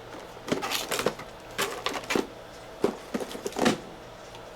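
Small hand tools being picked up and set down on a workbench: three short bursts of clicking, rattling clatter.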